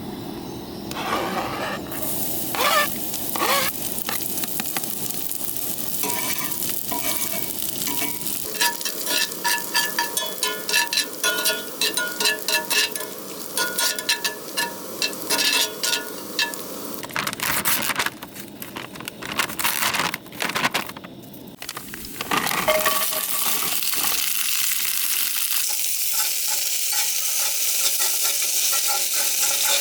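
Food frying in a pan: a sizzle, with a utensil stirring and clinking against the pan through the middle stretch, then a steady, even sizzle from about two-thirds of the way in.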